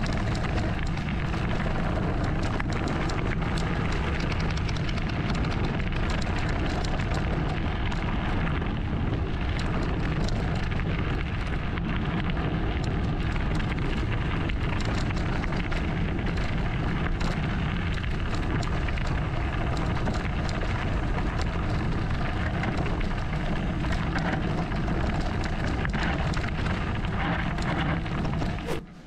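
Enduro mountain bike rolling fast down a loose gravel and stone track: a steady crunch of tyres over stones with many small rattles and knocks from the bike. It cuts off abruptly near the end.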